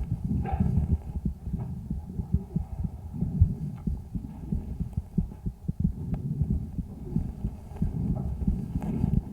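A calf's chest sounds picked up by a homemade stethoscope microphone on the right side: low-pitched breath sounds with the heartbeat and many short clicks. The calf's right lung showed a lesion on ultrasound.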